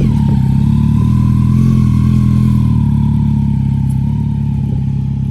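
Motorcycle engine running at low revs close by, steady, with a slight rise in pitch around a second or two in that eases off again.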